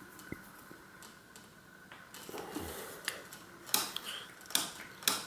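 Light metallic clicks and scraping of an Allen key tightening the cable anchor bolt on a bicycle V-brake arm, followed by several separate sharp clicks spaced about half a second to a second apart.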